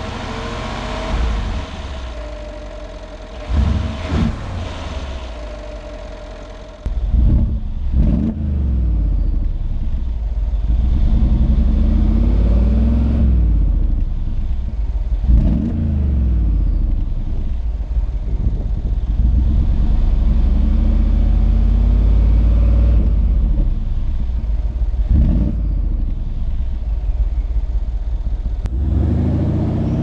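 2014 Mercedes-Benz G63 AMG's 5.5-litre twin-turbo V8 idling with a few short rev blips, heard at the open engine bay. About seven seconds in it becomes much louder at the side-exit exhaust pipes, revved again and again with the pitch rising and falling, and near the end it pulls away with the revs climbing.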